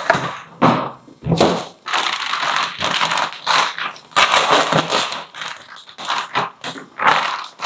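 Thin plastic bag crinkling and rustling in irregular bursts as a large whole catfish is handled in it.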